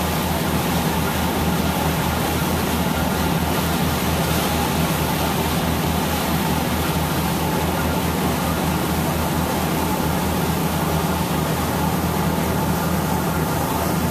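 A boat's engine running with a steady low hum under the constant rushing of its churning wake.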